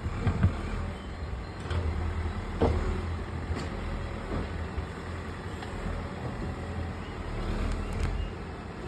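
Heavy construction machine's engine running steadily with a low rumble, with several sharp knocks and clanks, the loudest about half a second in and near a third of the way through.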